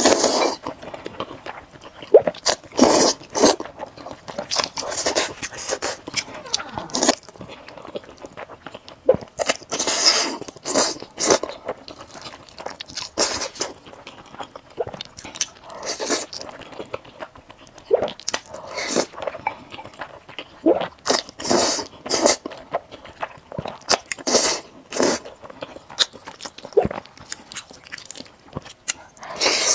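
Close-miked mouth sounds of eating spicy fire-chicken instant noodles and grilled eel: wet slurps of noodles and chewing, coming in irregular bursts.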